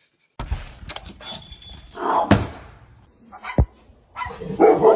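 A dog barking three times, the last bark the longest.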